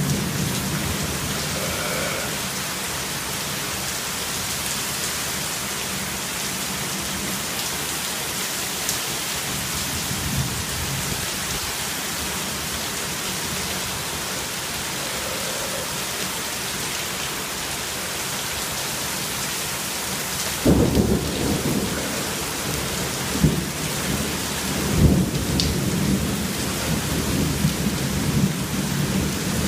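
Heavy rain pouring steadily. About two-thirds of the way through, thunder rolls in with several low, uneven rumbles.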